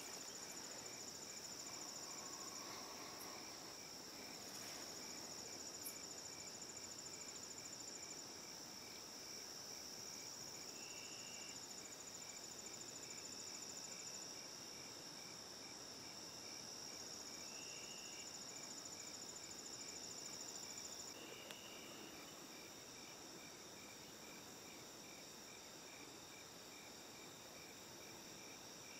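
Late-summer chorus of crickets and other insects: a steady high trill that stops about two-thirds of the way through, trains of rapid pulsing that come and go every few seconds, and an evenly repeated lower chirp throughout.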